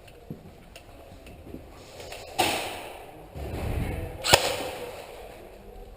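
Airsoft gunfire: two sharp cracks about two seconds apart, the second shorter and the loudest, with a dull low rumble between them.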